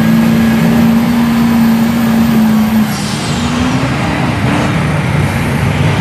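Lifted Ford pickup truck's engine running with a steady low drone as the truck rolls forward, its pitch dipping and then climbing about halfway through as the throttle comes on.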